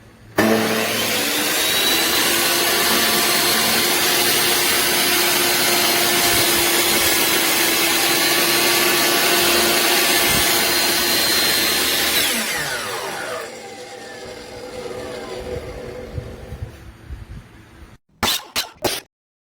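Metabo HPT 10-inch compound miter saw's 15-amp motor starting abruptly and running at full speed with a steady high whine, then switched off about twelve seconds in and winding down with falling pitch. A few sharp clacks come near the end.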